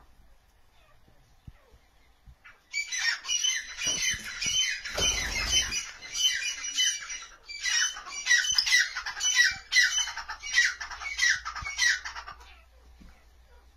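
Francolin (teetar) calling: a loud, harsh series of quickly repeated notes that starts about three seconds in and runs for about ten seconds before stopping.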